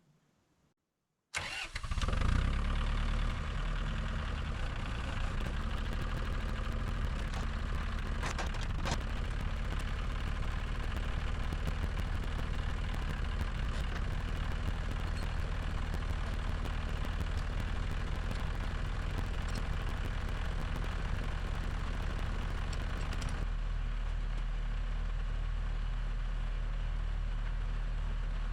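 Tractor engine starting about a second in, then running steadily. Near the end the higher hiss drops away, leaving a deep steady hum.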